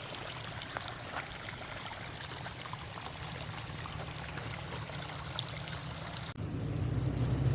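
Stream water rushing and splashing around a Toyota FJ Cruiser as it crawls up a creek bed, with its engine as a low rumble underneath and scattered small clicks. Near the end the water noise drops away and a louder, steady engine drone takes over.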